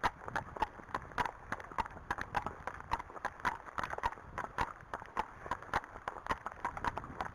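Hooves of two horses, a black Friesian and a chestnut Arabian, walking on a tarmac lane: a steady, uneven clip-clop of several hoof strikes a second.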